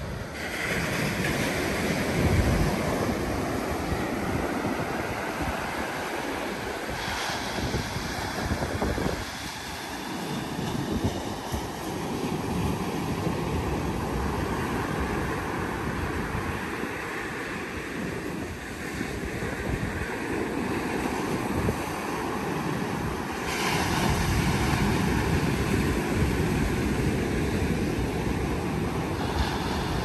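Ocean surf breaking and washing up a sandy beach, a continuous rush that swells and eases with each wave, louder about three-quarters of the way through. Wind buffets the microphone with an uneven low rumble.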